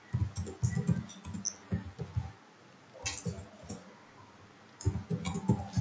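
Computer keyboard being typed on: short runs of key presses with pauses between them.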